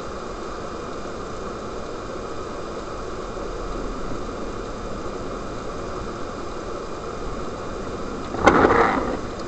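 Steady road and engine noise of a car driving through a blizzard, heard from a dashcam inside the cabin. Near the end a sudden louder burst of noise lasts under a second.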